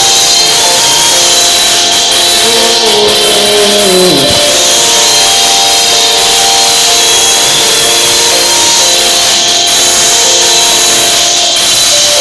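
Loud music with sustained held notes. About four seconds in, one sound slides steeply down in pitch.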